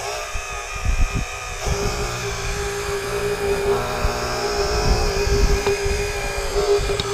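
The hydraulic pump of an Earth Digger 4200XL RC excavator whines steadily as the arm works. Irregular low knocks and rumbles come as the bucket digs into the soil.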